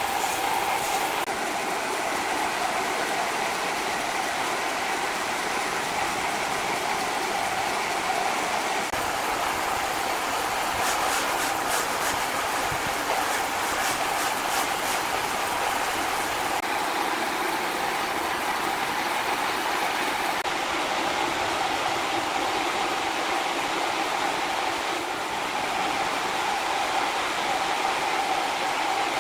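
Large horizontal band sawmill running, its thin blade cutting lengthwise through a huge log: a steady, even sawing noise with a constant mid-pitched drone.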